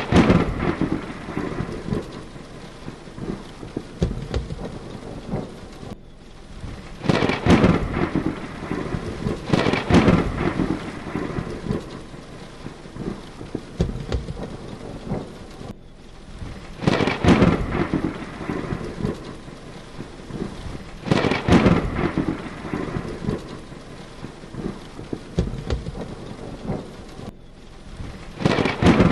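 Thunderstorm: heavy rain falls steadily while thunder booms and rolls about six times, each peal swelling loud for a second or two. The sound briefly drops out three times.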